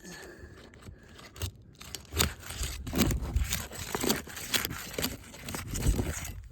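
Asphalt roof shingles scraping and crunching in irregular strokes as a damaged three-tab shingle is worked loose, with dull low thumps mixed in.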